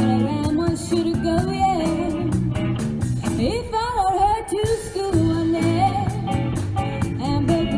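Background song with a sung vocal over guitar and a steady beat.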